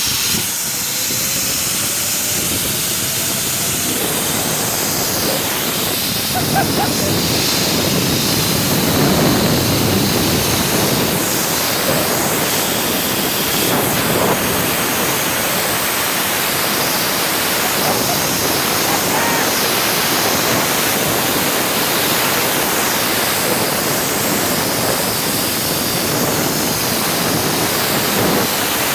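Zip-line trolley running fast along the steel cable, its pulley whine rising in pitch over the first few seconds as it picks up speed, under a loud steady rush of wind over the microphone.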